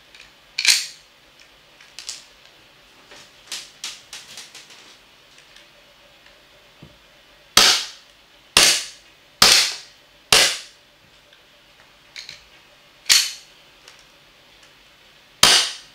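Green-gas blowback airsoft pistol (WE Glock 19) firing single shots, each a sharp crack of the shot and the slide cycling: one about a second in, then four about a second apart from halfway through, and two more near the end. Lighter metallic clicks of the pistol being handled come in between.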